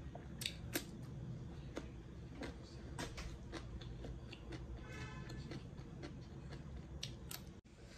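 Raw cucumber slice being bitten and chewed close to the microphone: a string of sharp, crisp crunches at uneven intervals, two of them close together about half a second in and two more near the end, over a steady low hum.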